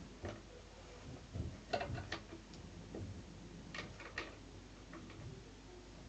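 Scattered light plastic clicks and knocks as parts are fitted onto an upright carpet cleaner, bunched about a second and a half in and again about four seconds in.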